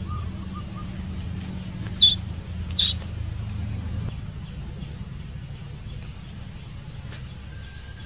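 Short high bird chirps over a steady low hum. The two loudest chirps come about two and three seconds in, with fainter chirps near the start.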